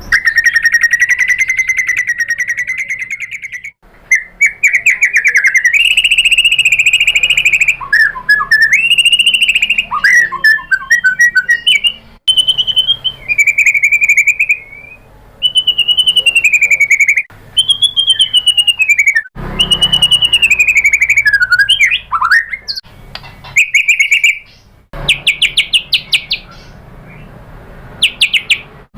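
White-rumped shama (murai batu) singing a long, varied song. A held, trilling whistle opens it, followed by sliding whistled phrases. Near the end come quick rattling chatter notes.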